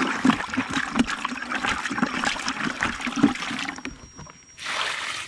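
Water sloshing and splashing in a plastic bucket dipped at a pond's edge, with a few sharp knocks of the bucket. Near the end a short rush of water as the bucket is tipped out.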